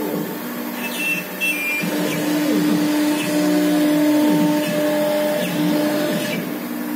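5.5 kW spindle of a 1325 CNC router engraving a sheet: a steady machine whine, with tones that sweep up and down repeatedly as the head speeds up and slows along its cutting path.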